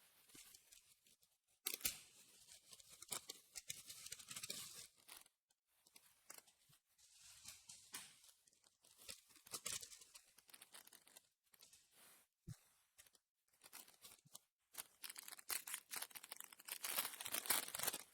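Faint tearing and crinkling of foil booster-pack wrappers being ripped open and handled, in short scattered bursts that grow busier near the end.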